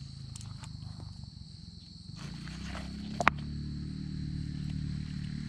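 Stones clicking and knocking together as a hand searches among wet rocks on a stream bank, with one sharp knock about three seconds in. A steady low hum runs underneath and grows a little louder about two seconds in.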